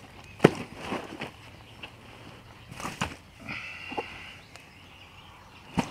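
A mirror carp being handled in a weigh sling on an unhooking mat: several sharp slaps and thuds, the loudest about half a second in, with rustling of the sling's fabric between them.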